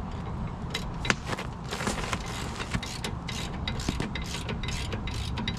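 A hand wrench or ratchet working on the caliper bracket bolts of a pickup's front brake: irregular metallic clicks and scraping, with one sharper click about a second in.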